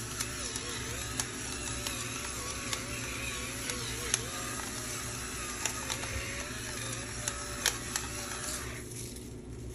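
Electric pepper grinder running, a steady small-motor whine that wavers slightly in pitch, with scattered sharp clicks as it grinds black pepper; it stops near the end.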